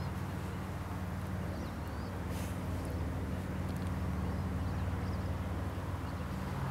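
A steady low mechanical drone, with a few faint high chirps near the start and around two seconds in.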